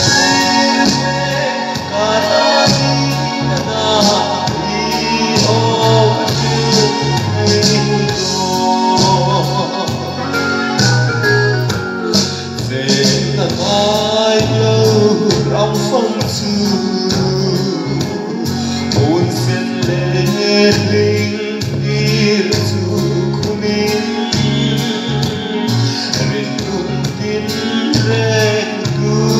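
Two women singing a gospel song in Hmar over instrumental accompaniment with a steady bass beat.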